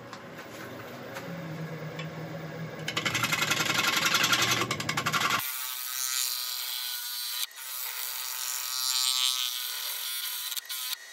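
Gouge cutting into a large elm platter blank spinning on a wood lathe, a scraping cut that grows louder and pulses rapidly for a couple of seconds. About halfway through it changes abruptly to a lighter, hissier cut with a few sharp knocks near the end.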